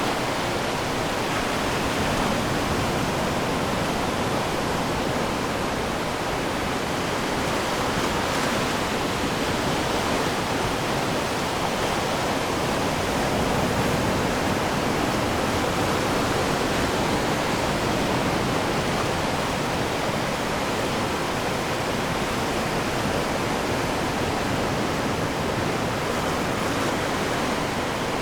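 Atlantic surf washing onto the shore: a steady, even rush of water.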